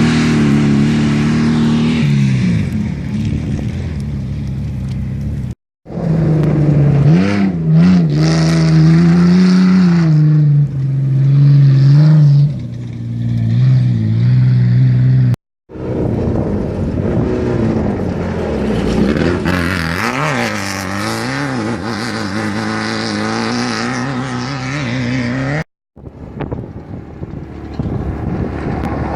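Off-road race vehicle engines running hard and revving as they pass, pitch rising and falling. Three short breaks where the sound cuts off suddenly divide this into separate passes.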